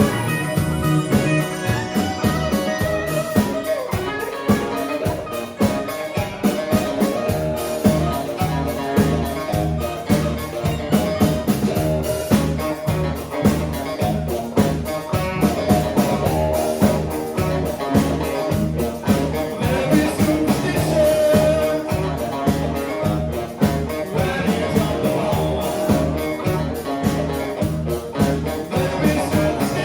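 A band playing a rock number, with guitar over a steady drum beat.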